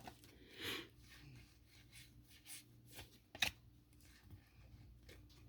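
Football trading cards being handled and slid one behind another: a faint swish and a few soft snaps of card stock.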